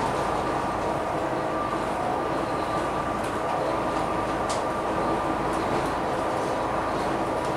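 Volvo B9TL double-decker bus heard from inside while on the move: its diesel engine and drivetrain running with a steady whine over road noise, and a sharp click about four and a half seconds in.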